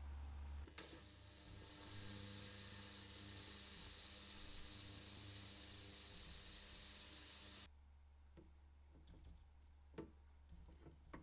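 Pressurised spray hissing steadily for about seven seconds, louder after the first second, then cutting off abruptly. A few faint light clicks follow on the bench.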